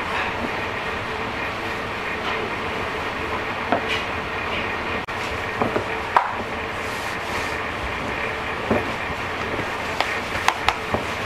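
Metal spatula scooping and pressing dumpling filling against a plastic tub, giving a few light clicks and taps, several in quick succession near the end, over a steady background hum.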